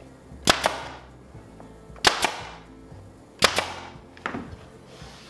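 An 18-gauge brad nailer firing three nails into wooden trim, about a second and a half apart, each shot a quick double crack, with a fainter click near the end.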